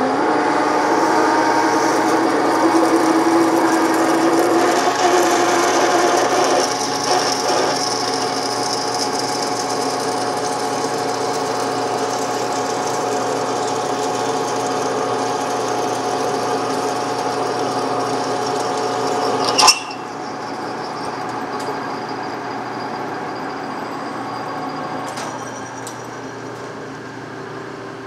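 Metal lathe running, its gear train giving a steady whine of several held tones while a twist drill fed from the tailstock bores into the spinning workpiece. About twenty seconds in there is a single sharp clack, after which the running sound is quieter.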